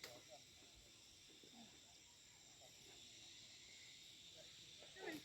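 Near silence: a faint, steady high-pitched insect chorus, with faint snatches of distant voices.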